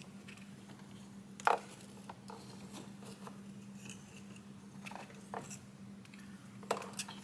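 Scattered light clicks and clinks of removed spark plugs and hand tools being handled and set down, the sharpest about one and a half seconds in, over a low steady hum.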